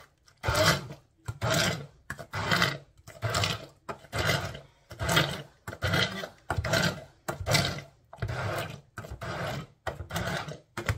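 Electric blender puréeing cooked vegetables in broth, run in short pulses about every three-quarters of a second.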